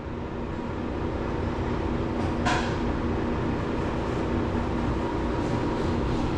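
Steady mechanical hum of a running machine, with several held tones, growing slightly louder, and one short sharp sound about two and a half seconds in.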